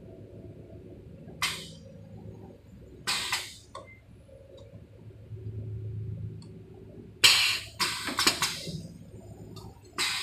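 R3D16 CNC bar-bending machine at work: a low motor hum that swells and fades twice, broken by sharp metallic clanks, a single one early on, a pair a few seconds later, and a rapid cluster of them about two-thirds through.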